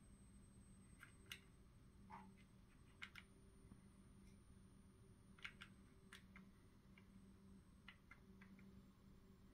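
Near silence: room tone with a faint low hum and a scattering of faint, short clicks.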